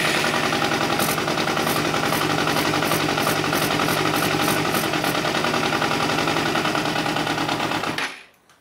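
Four-cylinder Yamaha 250cc motorcycle engine, just brought back to life after ten years standing, running steadily as it warms up. It is shut off about eight seconds in.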